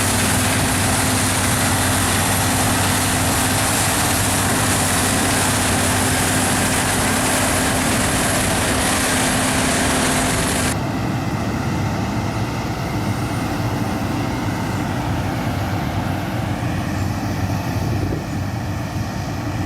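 Claas combine harvester running steadily while harvesting wheat: a constant engine drone with a steady hum. About eleven seconds in the sound changes abruptly, losing much of its hiss.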